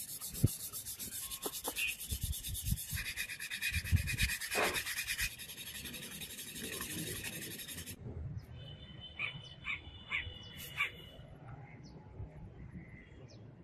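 A small metal sword fitting rubbed rapidly back and forth on sandpaper, a dense scratchy hiss in quick even strokes, flattening and smoothing its face. The sanding stops about eight seconds in, leaving only a few faint clicks.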